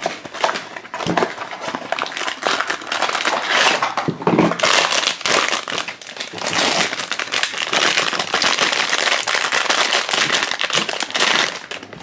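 Crinkling and crackling of a blind-box figure's foil wrapper being handled and torn open by hand. Sparser handling clicks near the start, then denser and louder crinkling from about four seconds in until just before the end.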